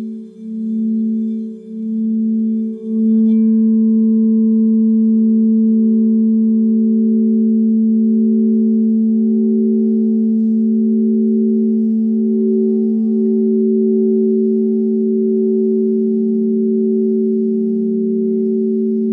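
Crystal singing bowls sounding two steady, sustained tones together, one low and one higher. For the first three seconds the sound swells and dips about once a second, then it settles into an even, unbroken ring.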